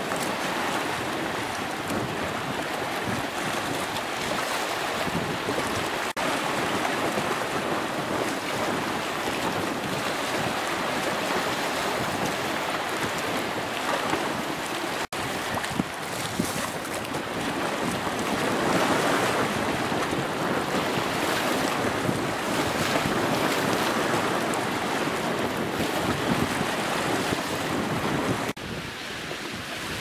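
Choppy sea water washing and splashing in a steady rush, with wind buffeting the microphone. The sound drops out for an instant about halfway through and turns quieter near the end.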